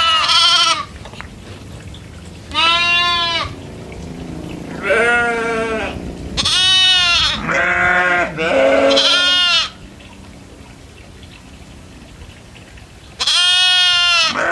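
Goats bleating: about seven separate wavering bleats at different pitches, from more than one goat, with short quiet gaps between them and a longer pause from about ten to thirteen seconds in.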